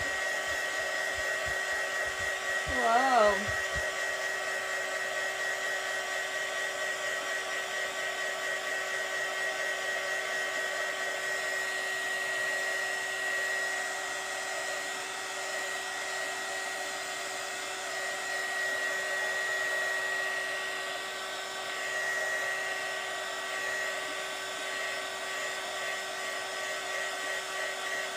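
Small handheld craft heat gun running steadily, a constant blowing with a fixed whine. A brief wavering tone comes in about three seconds in.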